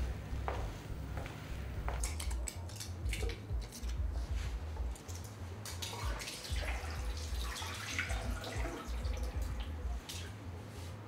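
Water splashing and dripping, starting about two seconds in, with many irregular small splashes over a steady low rumble.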